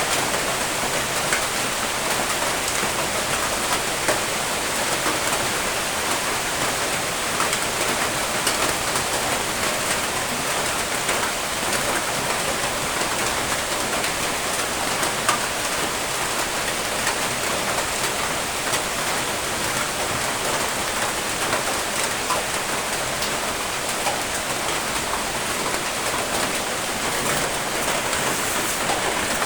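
Steady rain falling on a surface: a continuous hiss of rain with scattered individual drop ticks.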